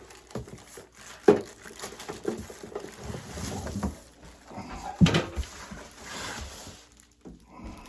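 Packaging being handled during an unboxing: plastic or foam wrapping rustling, with a couple of sharp knocks as the welder or its box is moved, the loudest about five seconds in.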